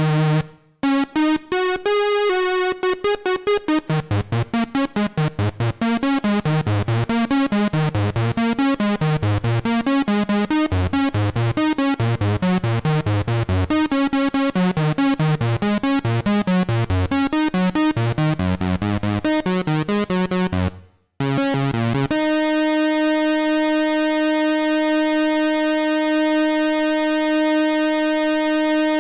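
DIY analogue synthesizer (Ad-vantage AD-3M) playing a fast run of short, separate notes in a shifting, repeating pattern. After a brief break it holds a single steady note rich in overtones.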